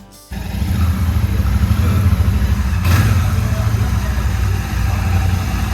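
Royal Enfield Shotgun 650's 648 cc parallel-twin engine idling, cutting in suddenly just after the start, with a brief swell about three seconds in.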